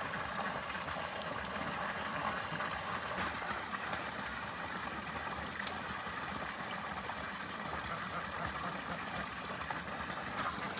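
Steady, soft outdoor background hiss with no distinct calls or knocks.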